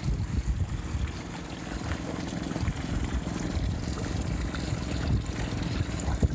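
Suzuki 40 hp outboard motor idling, with its cooling-water tell-tale stream trickling into the water beside the leg, a sign that the cooling system is pumping.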